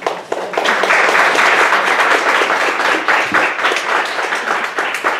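Audience applauding, starting abruptly and fading away near the end.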